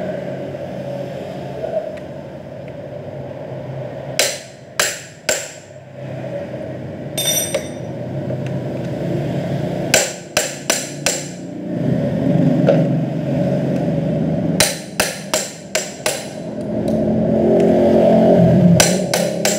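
Metal hammer strikes on a tool set against the clutch of a Yamaha F1ZR, in short runs of three to six sharp hits with pauses of a few seconds, knocking the clutch assembly loose. A vehicle engine runs steadily in the background.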